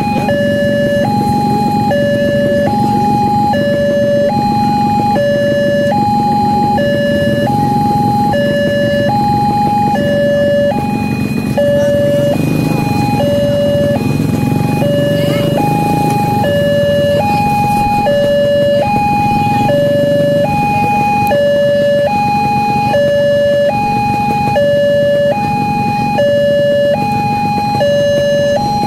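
Railway level-crossing alarm sounding a two-tone electronic warning, alternating steadily between a higher and a lower tone about twice a second: the signal that a train is approaching and the crossing is closed.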